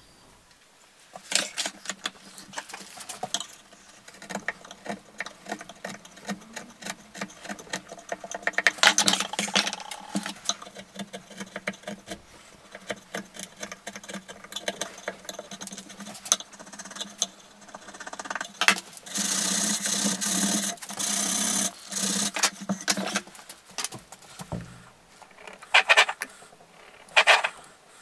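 Hand work on oak lamp legs: a series of knocks, taps and clicks with scraping, including a chisel paring dried glue from an oak joint. A little past the middle comes a steady noisy stretch of about three and a half seconds.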